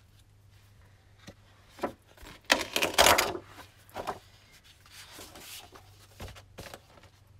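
Large sheets of 12x12 patterned scrapbook paper being lifted, flipped and laid down onto a pile: rustling and flapping paper with light taps. The loudest rustle comes about three seconds in.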